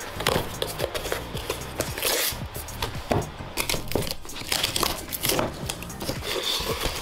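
Cardboard mailer box being torn open along its perforated tear strip, with repeated ripping of card and paper and rustling of the packaging as the lid is pulled open.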